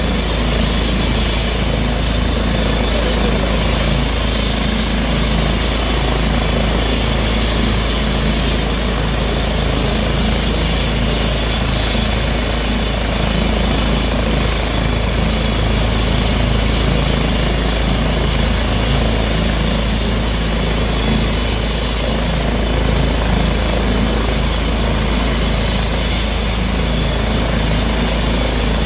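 Airbus H135 twin-turbine helicopter running on the ground before lifting off: a steady turbine whine over the loud, even noise of the turning rotor.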